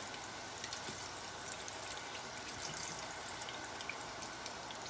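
Chicken wings deep-frying in a saucepan of hot oil: a steady sizzle with light crackles.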